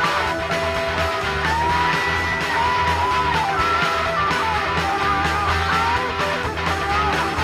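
Psychedelic progressive rock band music: a high lead line that slides and bends between notes over steady bass and drums.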